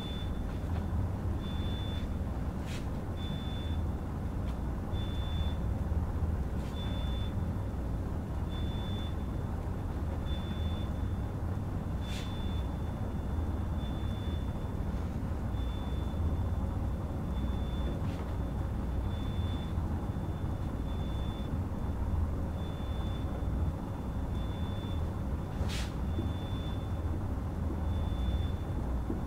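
Steady low rumble of room noise with a faint high-pitched electronic beep repeating about every 1.7 seconds, and a few sharp clicks, the loudest near the end.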